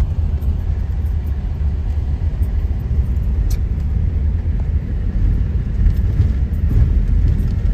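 Steady low rumble of a car driving on an unpaved dirt road, heard from inside the cabin.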